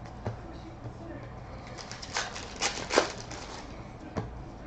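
Baseball trading cards being flipped and shuffled by hand, with several sharp card snaps, the loudest about three seconds in.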